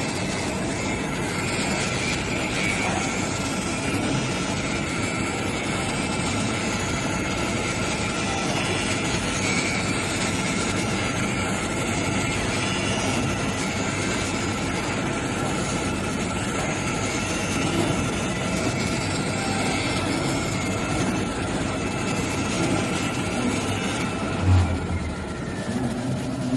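CNC fabric cutting machine running: a steady mechanical noise with a constant high whine. There is a brief low thump about 24 seconds in.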